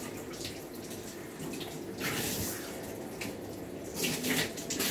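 Water from a hand-held grooming-tub sprayer hissing steadily onto a wet dog's head and neck, rinsing shampoo out of the coat, with louder splashing surges about two and four seconds in.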